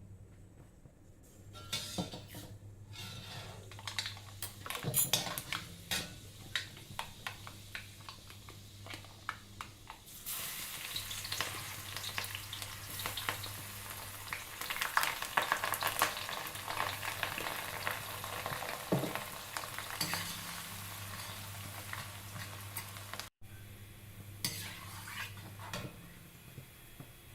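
Food frying in a pan, with a spoon clicking and scraping against the pan as it is stirred. A loud sizzle sets in about ten seconds in and drops away suddenly later on, with a steady low hum underneath.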